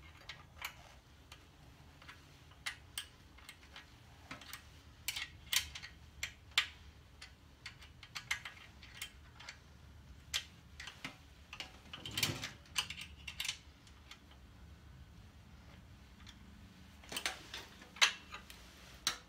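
Hand tool working on a motorcycle's primary chain tensioner: irregular sharp metallic clicks and ticks, some in quick little runs, with a duller knock about twelve seconds in.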